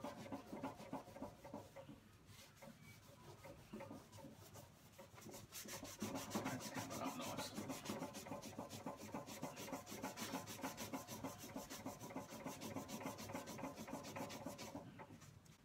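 A scourer pad scrubbing the soapy stainless steel edge of a gas barbecue in quick back-and-forth strokes, working at a burn mark. The strokes are softer for a few seconds, scrub harder from about six seconds in, and stop near the end.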